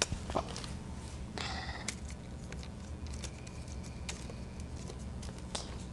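Faint clicks and taps of small objects being handled and set down, with a short rustle about a second and a half in, over a low steady room hum.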